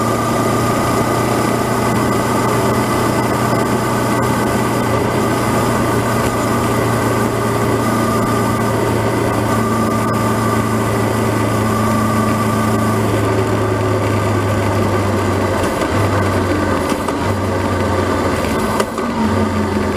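Honda CB500X's parallel-twin engine running steadily at road speed, with wind rushing over the camera microphone. About three-quarters of the way through the engine note drops and wavers as the throttle eases.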